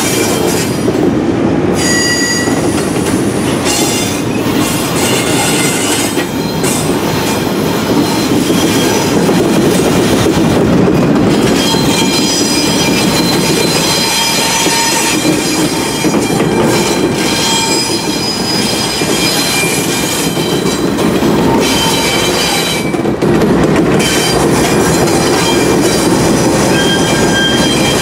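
Double-stack intermodal well cars rolling slowly past on jointed track, steel wheels squealing against the rail in shifting high tones over a steady rumble, with clicking at the rail joints.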